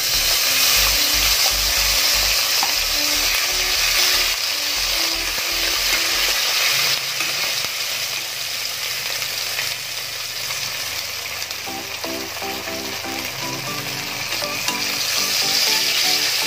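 Ground spice paste (cashew, poppy seed, ginger, green chilli) hitting hot oil in a stainless steel kadai: a sizzle that starts suddenly and keeps up steadily as the paste fries and is stirred with a spatula.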